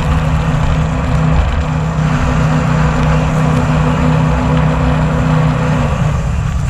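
Jet boat engine running steadily at speed, a constant low hum under a rush of wind and water. Near the end the engine note drops.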